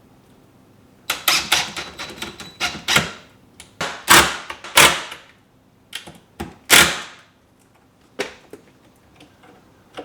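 Screws being driven into wood to fix a rod rack to the wall: a series of short scraping bursts and clicks, each a fraction of a second long. The loudest bursts come about four and seven seconds in.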